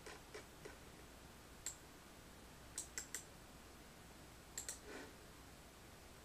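A few faint, scattered clicks of a computer mouse and keyboard, some in quick pairs, with quiet in between.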